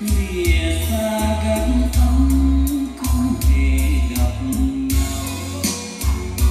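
A song with a singing voice, full bass and a steady drum beat, played back through a pair of JBL L26 Decade loudspeakers.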